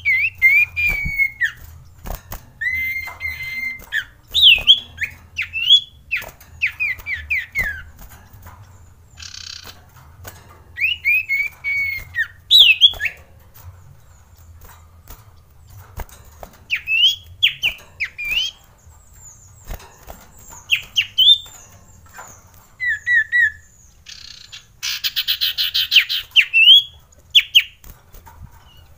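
Common iora (cipoh) singing: clear whistled notes and slurred phrases that rise and fall, in bursts every second or two. A short harsh rattling chatter comes about a third of the way in and a longer one near the end.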